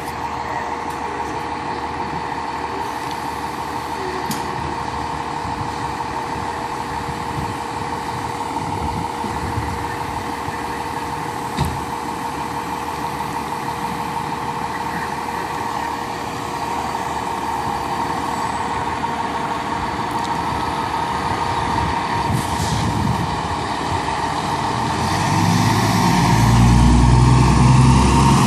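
Diesel engine of a fire rescue truck idling in the station bay over a steady hum, then growing louder in the last few seconds as the truck pulls out.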